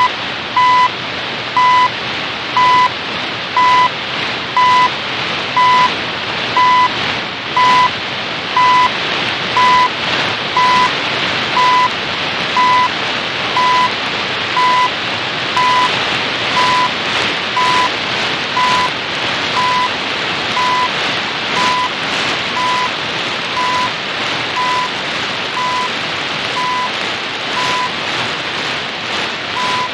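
CHU shortwave time signal heard through a portable shortwave radio: a short 1 kHz beep every second over heavy static hiss with crackles. The first beep, slightly longer, marks the top of the minute just after the spoken time announcement. The beeps fade a little in the middle and come back as the signal varies.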